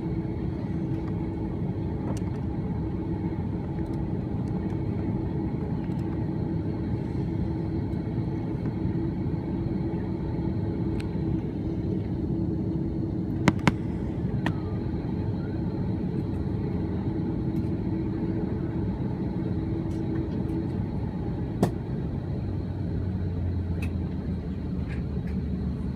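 Steady cabin rumble of an Airbus A330-300 on the ground, heard from inside the cabin. A steady hum runs through it and stops about three-quarters of the way in. There are a couple of sharp clicks around the middle and another soon after the hum stops.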